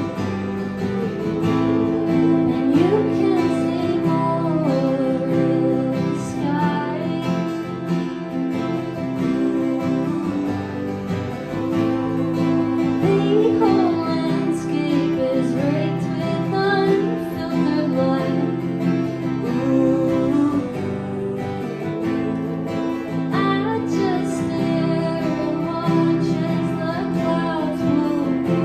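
Acoustic guitar strumming chords while a woman sings.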